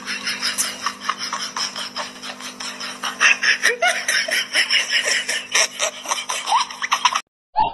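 People laughing over a rapid rasping, crackling noise, with a steady low hum beneath; it all cuts off abruptly near the end.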